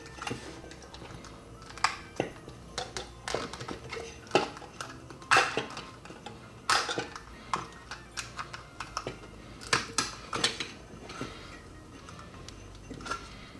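Irregular clicks, knocks and short scrapes of hand tools prying a silicone-glued circuit board out of an LED downlight driver's plastic housing.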